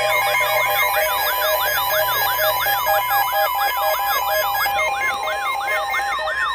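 Electronic emergency-alert siren tone: a yelping siren sweep repeating about three to four times a second, layered over steady and pulsing electronic beeps.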